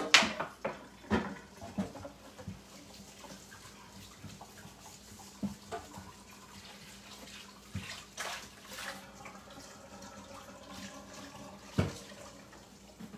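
Kitchen faucet running into a stainless steel sink while a bowl is washed by hand, with occasional knocks and clinks against the sink, the loudest near the end.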